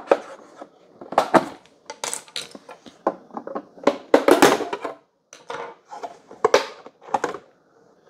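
Plastic snap-fit outer cover of a Keurig K-Mini coffee maker being pried and unsnapped with a pry tool: irregular clicks, snaps and scraping as the clips are worked loose, the loudest about four seconds in.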